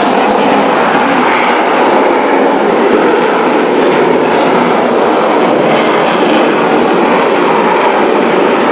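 Loud, steady jet noise from a Eurofighter Typhoon's two turbofan engines.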